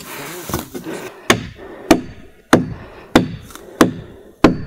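A stake being driven into the ground with repeated blows: six evenly spaced strikes, about one every two-thirds of a second, starting about a second in.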